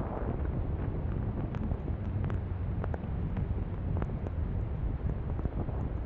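Strong blizzard wind buffeting the microphone: a steady low rumble with scattered small clicks.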